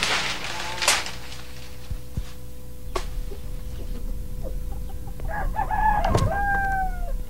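Rooster crowing about five seconds in: one call in short segments, ending in a long note that falls slightly. A few sharp knocks come in the first seconds.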